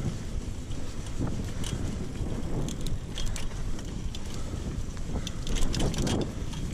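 Mountain bike riding a dirt trail, heard through an action camera's microphone: wind buffeting and tyre rumble, with scattered sharp clicks and rattles from the bike.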